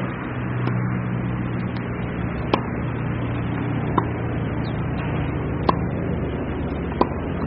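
Four sharp pops of a tennis ball being struck, spaced about a second and a half apart, over a steady low hum of background noise.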